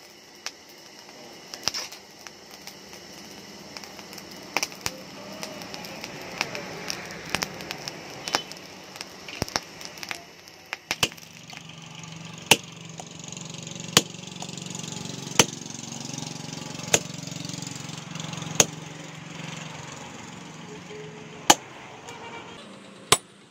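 Sharp metal-on-metal strikes on a red-hot steel bearing ring held on a steel post, about one every second and a half over a steady low hum. Before that, tongs clink and scrape in the burning coals of a charcoal forge.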